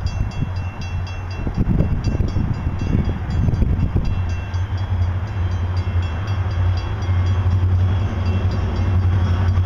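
Three EMD SD40-2 diesel locomotives, with their 16-cylinder two-stroke engines, drawing near at the head of a freight train. The rumble is uneven at first, then settles into a steady low drone that grows louder from about halfway through as they close in.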